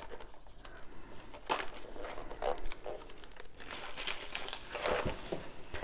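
Gift wrapping paper crinkling and tearing as it is pulled off a small cardboard candy box, in irregular rustles.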